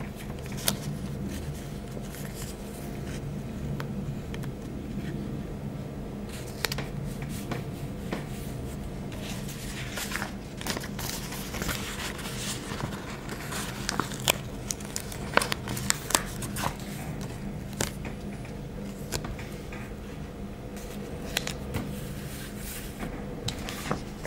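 Paper stickers being peeled from their backing sheet and pressed down on paper by hand: rustling and crinkling with scattered sharp clicks and taps, over a steady low hum.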